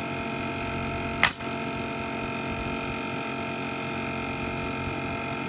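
One sharp shot of a Metabo HPT pneumatic nail gun about a second in, over the steady hum of a Bostitch air compressor running.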